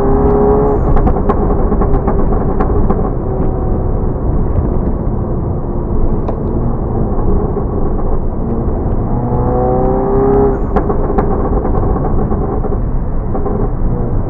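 Volkswagen Golf GTI Mk7's turbocharged 2.0-litre four-cylinder running through a 5150 Racing exhaust. It accelerates with a rising note, then gives a run of sharp pops and crackles. It pulls again with a rising note about ten seconds in, followed by more pops.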